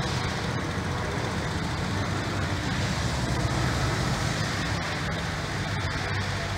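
Steady low hum of an idling car engine, unchanging throughout.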